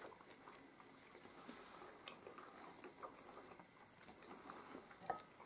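Near silence: quiet room tone with a few faint clicks, the clearest near the end.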